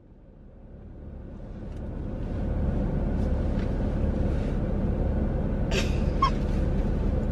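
Low, steady rumble of a car running, heard from inside the cabin, fading in over the first two seconds or so.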